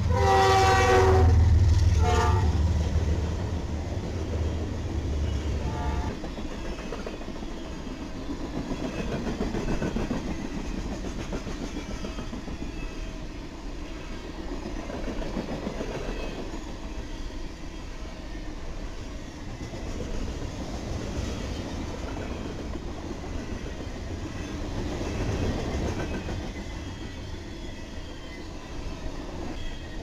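A train passing: the horn ends a long blast early on and sounds two short blasts, about 2 and 6 seconds in, over a heavy low locomotive rumble. The rumble drops away after about 6 seconds, leaving the steady rolling clatter of the cars on the rails.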